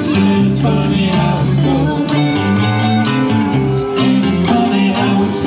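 Live blues-rock band playing, with electric guitars, bass and drums.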